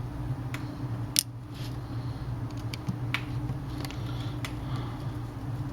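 Sparse small metallic clicks and ticks from a precision screwdriver working tiny screws out of a tablet's internal frame, the sharpest about a second in, over a steady low hum.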